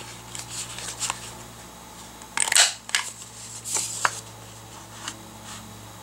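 Handheld corner rounder punch clicking several times as it cuts rounded corners off a strip of patterned paper, with paper handling between snaps. The loudest snap comes about two and a half seconds in.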